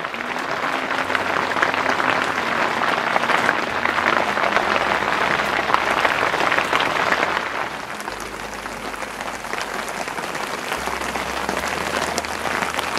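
Heavy rain pattering on tent fabric, a dense steady crackle of drops that eases slightly about eight seconds in.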